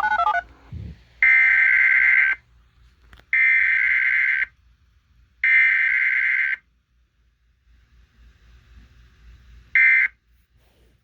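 Emergency Alert System SAME digital header tones from an automated weekly test. Three data bursts about a second long each come a second apart, with no attention tone after them. After a pause of about three seconds, a short end-of-message burst sounds near the end.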